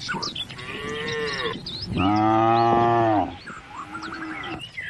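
A cow mooing: a shorter low call, then a loud, long moo of over a second about two seconds in, and a weaker call after it. Birds chirp in the background.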